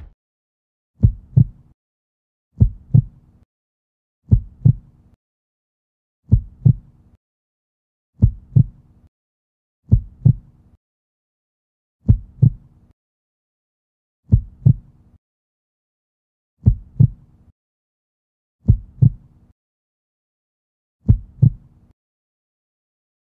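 Heartbeat sound effect: a low double thump, lub-dub, repeating eleven times about every two seconds and slowing slightly, with nothing else between the beats.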